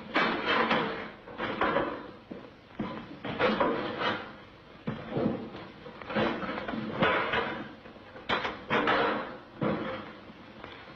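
A quick, irregular run of clunks, bangs and rattles, about a dozen and roughly one a second, as a Volkswagen Beetle's doors and body panels are pulled off its chassis.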